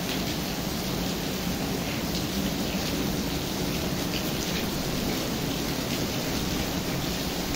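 Rain falling steadily, an even hiss with no break.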